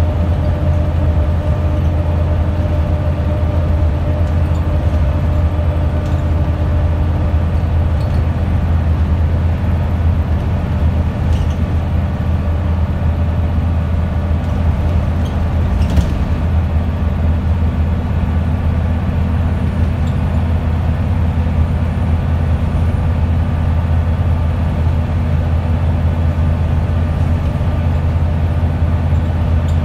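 Wright Solar-bodied Scania single-deck bus heard from inside the saloon while under way: the engine and drivetrain run with a steady low drone and a held whine over road noise. There is a single sharp knock about halfway through.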